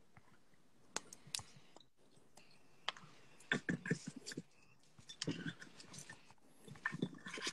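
Faint, indistinct voice and mouth noises over a phone's microphone, with a few sharp clicks in the first three seconds.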